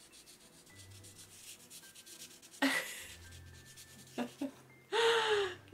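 Felt-tip marker rubbing back and forth on a small paper sticky note, colouring over invisible white ink to reveal a hidden message. About two and a half seconds in there is a short, sharp burst of noise, and near the end a brief vocal sound.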